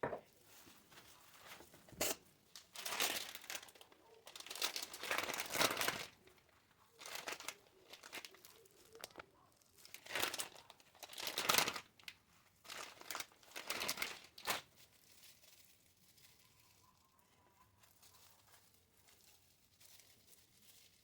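Crinkling and rustling in repeated bursts for about fifteen seconds, then dying down to faint handling noise.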